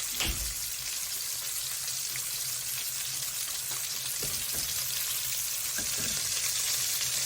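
Salmon fillets frying in hot oil in a pan after being flipped: a steady sizzle, with a few light knocks.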